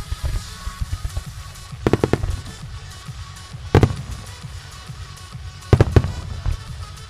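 Starmine fireworks display: aerial shells bursting with sharp bangs in groups about two seconds apart, first a cluster, then a single bang, then two close together. Music with a pulsing bass beat plays underneath.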